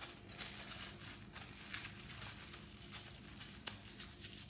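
Plastic cling film crinkling in quick irregular crackles as hands fold and press it tightly around a block of mozzarella cheese.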